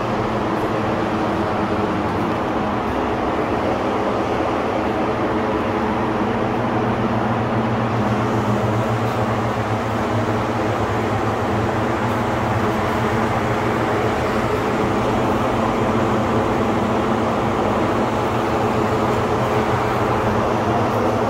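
Steady machine hum: a low drone of several held tones under an even hiss, unchanging in level.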